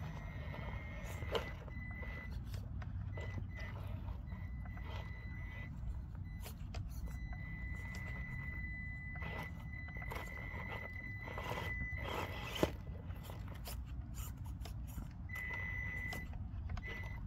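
Traxxas TRX-4M mini crawler, fitted with Injora underdrive gears, whining in short spells as it is driven slowly up rock, with the plastic tyres and chassis clicking and knocking on the stones. One sharp knock comes about two-thirds of the way through.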